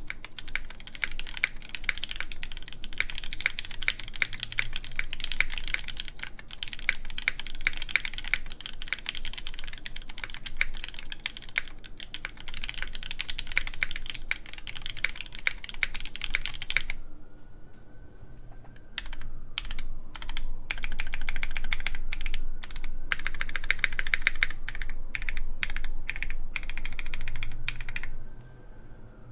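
Fast typing on an iNN Studio Parabolica60 mechanical keyboard in tadpole pin mount, with an aluminum plate, lubed Gateron Red Ink linear switches and GMK keycaps: a rapid stream of keystroke clacks. About halfway through it slows to a few scattered keys. It then picks up again and stops near the end.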